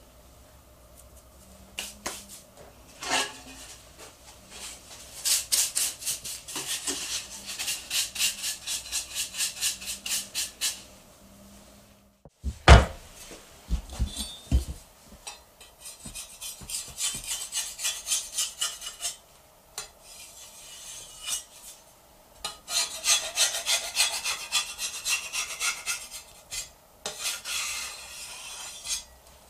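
Square soba knife scraping across a flour-dusted wooden board in runs of quick, even strokes, about four a second. A few heavy knocks on the board come near the middle.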